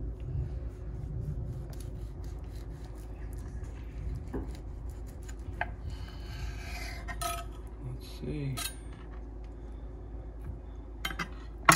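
Kitchen knife cutting through a homemade sushi roll on a cutting board: soft rubbing, scraping strokes with scattered small clicks, and a brief rustling hiss about six seconds in. A sharp knock near the end is the loudest sound.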